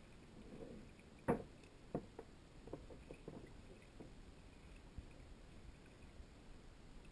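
Muffled underwater knocks and clicks picked up through a GoPro dive housing: one sharp knock about a second in, then several softer ticks.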